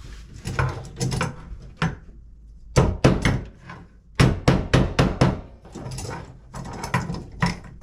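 Hammer tapping a plastic wall anchor into a hole in the drywall: a couple of knocks, then a quick run of about six taps, then a few more near the end.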